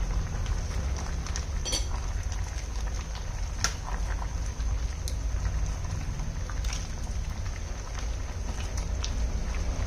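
Pot of small-fish and banana-stem soup bubbling at the boil, with a steady low rumble beneath and scattered sharp pops and ticks.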